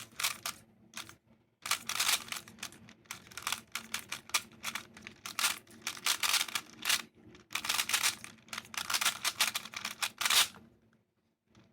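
GAN 356i speed cube being turned fast through a solve: rapid plastic clicking of the layers turning, in quick runs, with a short pause about a second in. The turning stops about ten and a half seconds in.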